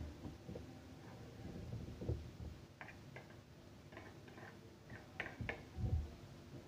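Scattered light clicks and a few soft low thumps, irregularly spaced.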